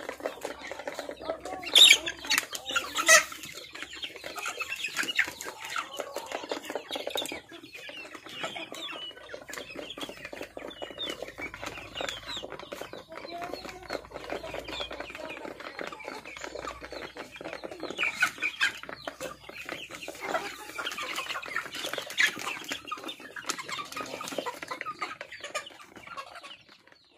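A flock of young chickens clucking and calling continually while they feed, with sharp clicks among the calls; the loudest two clicks come about two and three seconds in.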